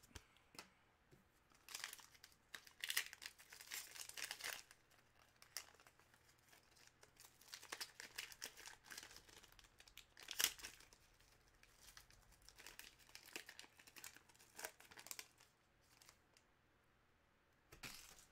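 Hockey card pack's foil wrapper being torn open and crinkled by hand, in irregular rustling bursts with one sharper rip about ten seconds in.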